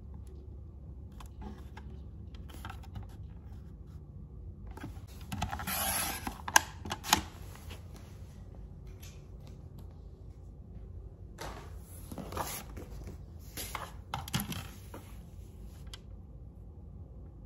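Sheets of printed labels handled and rustling close to the microphone in two bouts, the first with two sharp taps.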